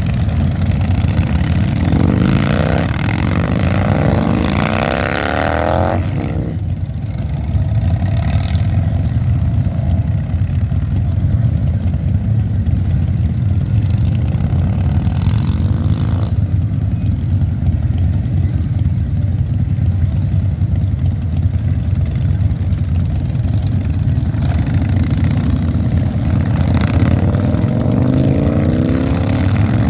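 A procession of large touring motorcycles running together, a steady engine rumble as bikes pull away one after another. Engines rev up as bikes accelerate past, most clearly in the first few seconds and again near the end.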